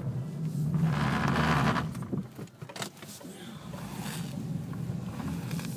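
Car engine running at low speed with tyre noise on a packed-snow road, heard from inside the cabin while the car turns around. A louder rush of noise in the first two seconds, then the sound drops lower.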